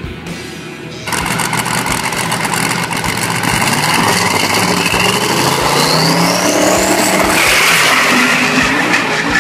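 Twin-turbo LSX V8 of a Pontiac GTO drag car running and revving at the start line, cutting in loudly about a second in. A whistle rises in pitch through the middle, typical of the turbos spooling up.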